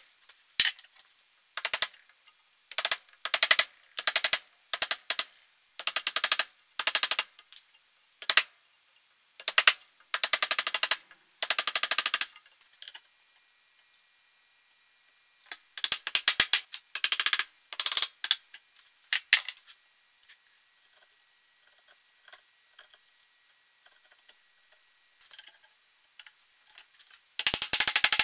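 Repeated short rasping strokes of a hand tool working the inletting of a walnut rifle stock, in runs with short gaps, a pause, then more strokes. Near the end comes a quick run of mallet taps seating the steel bottom metal into the stock.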